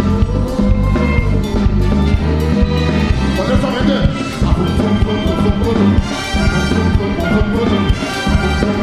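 Live calypso band playing an instrumental passage: steelpan with a horn band over bass and drums.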